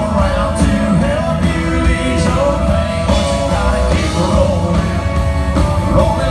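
Live country band playing loud and steady: fiddle, acoustic and electric guitars and drums together.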